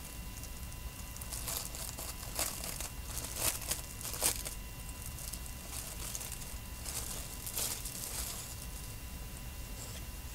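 Clear plastic kit bag crinkling and crackling as it is handled and opened, in irregular bursts with a few sharper crackles in the first half and another cluster about three-quarters of the way through.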